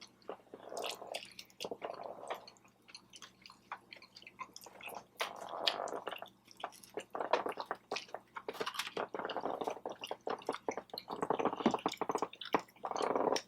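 Close-up chewing of food, with wet squishing mouth sounds and many small clicks coming in irregular clusters.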